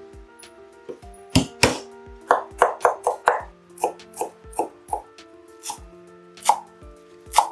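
Knife chopping food in irregular strokes, with a quick run of about six or seven chops in the middle, over background music.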